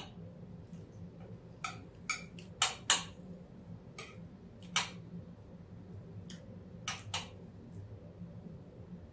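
Knife and fork clinking and scraping on a ceramic plate as food is cut: a dozen or so short sharp clicks, loudest about three seconds in, over a low steady hum.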